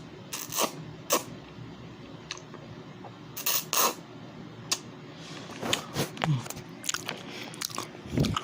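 Close-up eating sounds from a mouthful of lo mein noodles: scattered sharp, wet clicks and smacks, with a longer noisy burst about three and a half seconds in.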